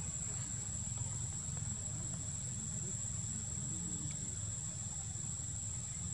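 Steady outdoor ambience: a continuous high-pitched insect drone over a low, even rumble.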